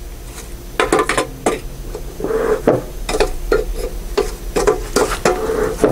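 Dry timothy hay rustling and a metal bee smoker clinking as handfuls of hay are shoved down into its can, with short strokes about twice a second in the second half.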